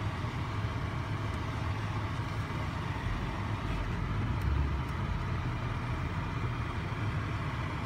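Steady low hum of a car's engine with road and cabin noise, heard from inside the car.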